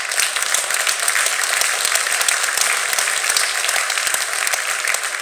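Loud audience applause: many hands clapping at once.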